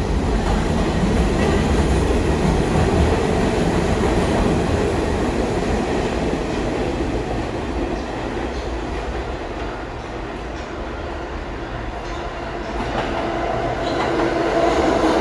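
New York City subway trains in a station: a loud rumble and rattle of a train moving on the tracks, easing off partway through, then building again near the end as an arriving train pulls in, with a whine joining the rumble.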